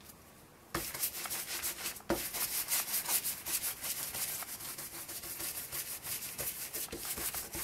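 Stencil brush scrubbing paint through a cut stencil onto paper: quick, scratchy brushing strokes that start under a second in, with a short break about two seconds in.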